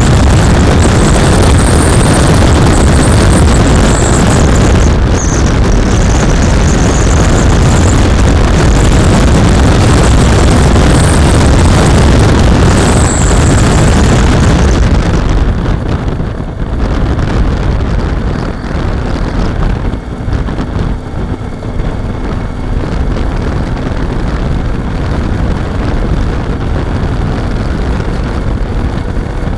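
Wind rushing over the camera microphone on a moving Suzuki DL650 V-Strom motorcycle, with its V-twin engine running beneath. About halfway through the wind noise drops sharply as the bike slows, and the engine is heard running more quietly.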